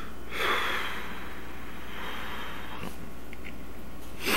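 A long breathy exhale, like a tired sigh, then a quick intake of breath near the end, over a steady low electrical hum.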